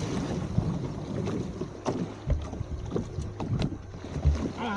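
Outboard motor of a small open boat running steadily under way, with wind buffeting the microphone and water rushing past the hull. A few short knocks come through near the middle.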